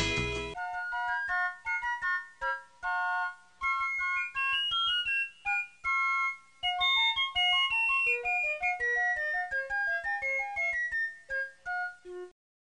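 Background music: a loud strummed passage cuts off about half a second in, followed by a light electric-piano melody of single notes over a soft, regular ticking beat, which ends just before the close.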